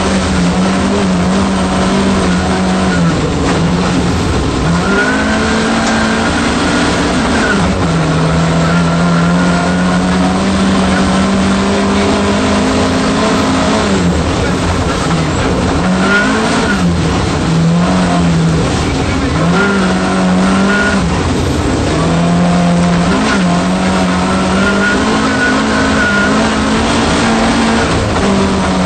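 Volvo 240 rally car's engine, heard from inside the cabin, running hard under load. Its pitch climbs and then drops again and again as it revs up through the gears and comes off the throttle.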